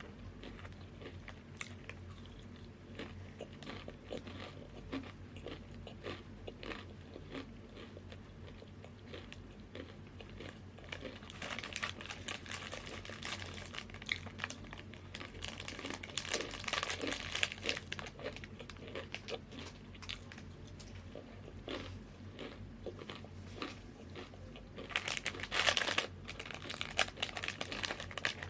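Crunchy snack chips bitten and chewed close to the microphone, a run of short crisp crackles. Near the end there is a louder burst of crinkling from a snack bag.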